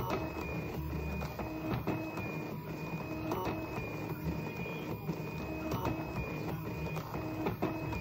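Stepper motors of an Arduino-driven Rubik's cube solving machine turning the cube's faces in quick succession: a steady motor whine with many sharp clicks as the layers are spun.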